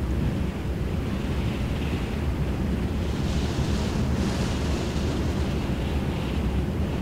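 Steady wind rushing over the microphone with a low rumble, the hiss swelling for a couple of seconds near the middle.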